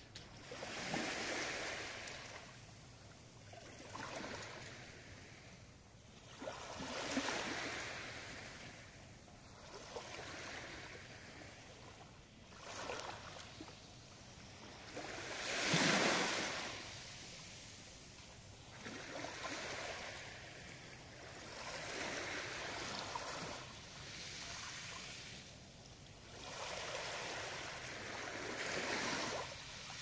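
Small waves washing up onto a pebble beach and drawing back, a swell of surf every two to three seconds, the biggest about halfway through.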